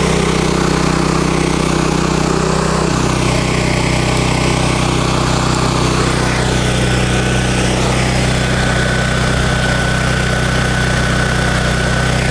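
Honda-engined Black Max 7,500-watt gasoline portable generator running steadily, its engine note shifting once about three seconds in.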